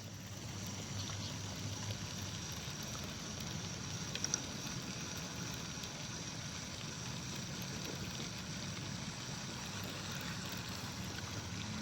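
Steady outdoor background noise: a low rumble with a hiss above it, and a few faint clicks about four seconds in.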